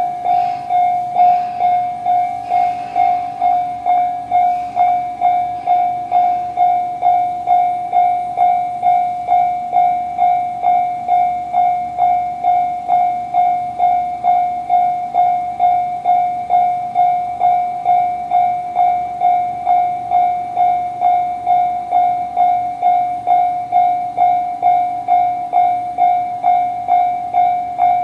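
Japanese electronic level-crossing warning bell of the Tobu 'type C' tone, ringing evenly at about two dings a second to warn that a train is coming. Train running noise sounds under it in the first few seconds.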